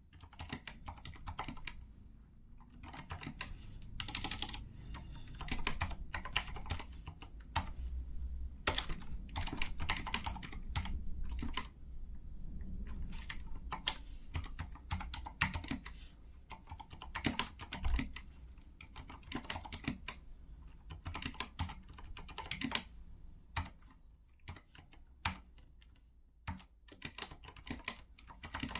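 Continuous typing on a Corsair K70 LUX RGB mechanical keyboard with Cherry MX Silent Red linear switches: a quick, irregular run of muted, dampened key clicks.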